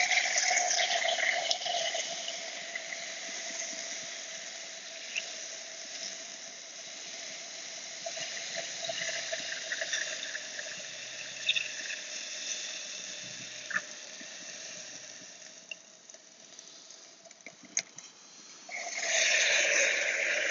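Liquid nitrogen poured into a beaker of 99% isopropyl alcohol, boiling off with a watery hiss as it reacts, loudest at first and slowly dying down. A few sharp ticks come in the quieter middle, and a second pour near the end brings the boiling back up loudly.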